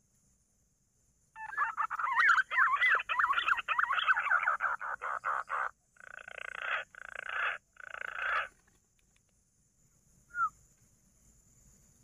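Green pigeon (punai) call imitated by mouth to lure the birds: a loud warbling whistle with fast wavering pitch for about four seconds, breaking into quick pulses, then three short harsher bursts. A single brief chirp follows near the end.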